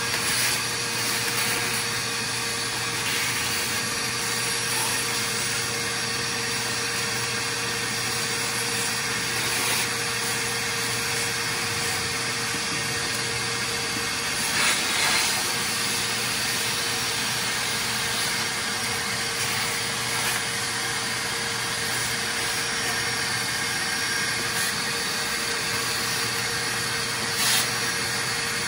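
Shop vacuum running steadily, a hiss with a constant hum, with a few brief knocks and clatters from parts being moved.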